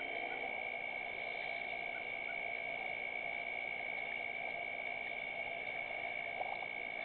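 Steady night ambience at a waterhole: a constant high-pitched ringing tone over a soft hiss, with a few faint short chirps about two seconds in.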